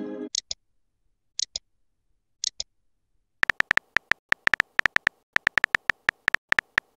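Synthetic phone-keyboard typing clicks from a texting-story animation: a rapid, even run of sharp ticks, several a second, starting about three and a half seconds in as a message is typed letter by letter. Before that, a message chime fades out at the very start, followed by a few short high double blips about a second apart.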